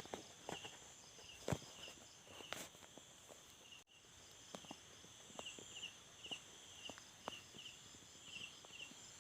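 Night insects chirping in short repeated pulses over a steady high-pitched buzz, with footsteps and irregular clicks of someone walking, the sharpest step about a second and a half in. The sound cuts out briefly about four seconds in.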